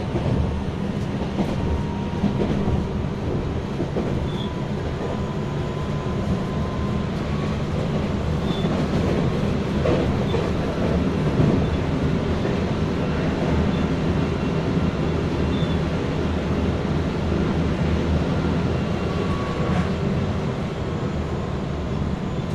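Tokyo Metro 9000 series electric train running at speed, heard from inside the car: a steady rumble of the wheels on the rails with a faint steady whine.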